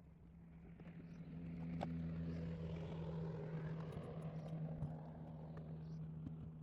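An engine droning with a steady hum as it passes, growing louder over the first two seconds and fading slowly toward the end.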